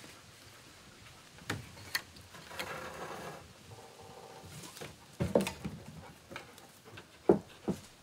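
Wooden knocks and thumps as a long pole is passed up and set against a frame of lashed poles. The knocks are scattered, with the loudest two near the end.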